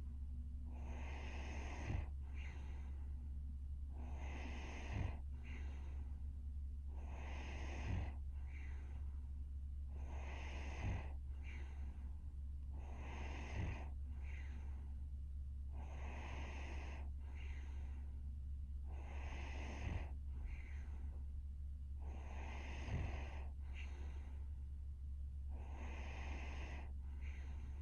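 A sleeping young woman's snoring breaths, slow and regular, about one breath every three seconds, each followed by a short second puff. A steady low hum runs underneath.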